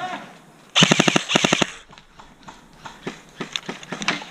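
Airsoft electric rifle firing one full-auto burst of about a dozen rapid shots lasting about a second, followed by scattered fainter clicks.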